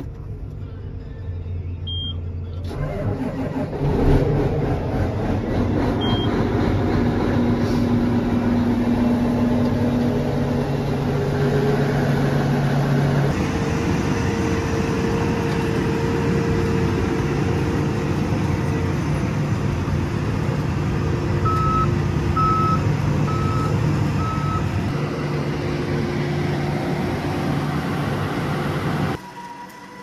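Diesel engines of John Deere farm machinery running steadily, across several cuts. In the longest stretch, beside a John Deere combine, a backup alarm beeps four times about a second apart.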